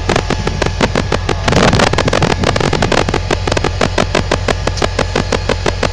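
CSX diesel-electric freight locomotive running at low power, a steady low rumble with a rapid, regular clicking about four to five times a second. A brief rush of noise comes about a second and a half in.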